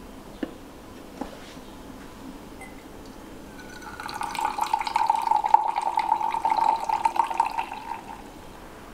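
Two light clicks, then hot coffee pouring from an aluminium stovetop moka pot into a small cup for about four seconds, a steady trickling stream that stops near the end.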